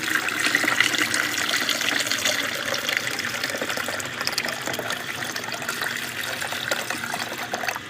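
Water being poured steadily into the water reservoir of a Cuisinart 12-cup drip coffee maker, a continuous splashing fill that eases off right at the end.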